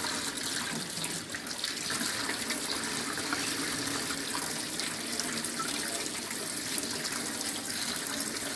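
Tap water running steadily into a stainless steel sink, splashing over hands as they rinse and clean small fish under the stream.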